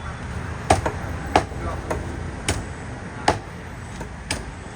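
Knife chopping through a red snapper, five sharp strokes roughly a second apart over a low background rumble.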